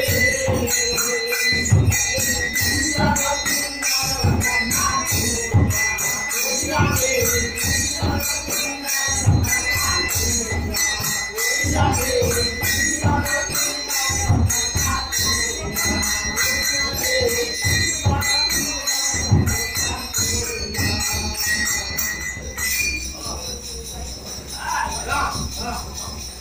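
Devotional kirtan music: a khol, the barrel-shaped two-headed drum, is beaten in a quick steady rhythm under ringing hand cymbals and voices chanting. About 23 seconds in the drum stops and the cymbals fade on alone.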